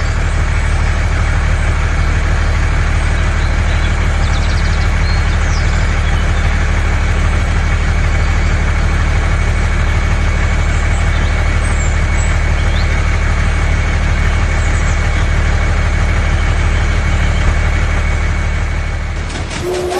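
Engine idling steadily and evenly, with a faint steady high whine over the low running note. It starts and stops abruptly.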